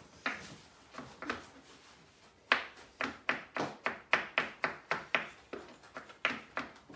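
Kitchen knife finely chopping garlic on a chopping board. A few scattered taps come first, then from about two and a half seconds in a quick, even run of sharp knocks, about three to four a second.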